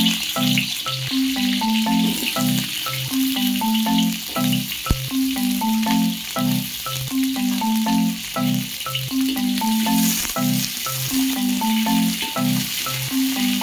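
Background music, a looping marimba-like melody, plays over the light sizzle of small onions, garlic and green chillies frying in oil in a metal wok. One sharp knock about five seconds in.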